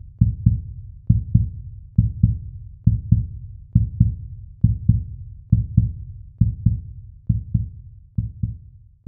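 Heartbeat sound effect: deep double thumps, lub-dub, repeating evenly a little faster than once a second.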